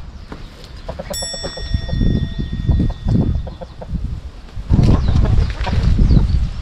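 Chickens clucking, over loud low rumbling thumps that are heaviest in the second half. A metallic ring starts about a second in and slowly fades.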